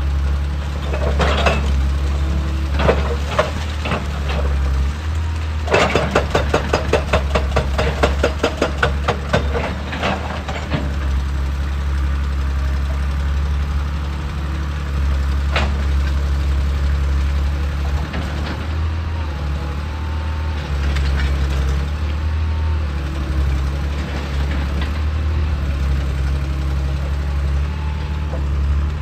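Hydraulic excavator's diesel engine running steadily, with scattered knocks early on and then a fast run of sharp impacts, about four a second, for roughly five seconds, as the machine works the rock.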